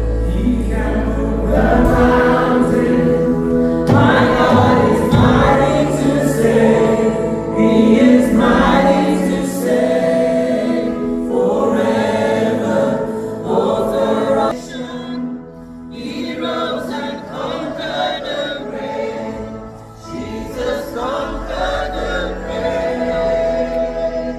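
Congregation and worship band singing a gospel hymn, voices carried on sustained notes over instrumental backing.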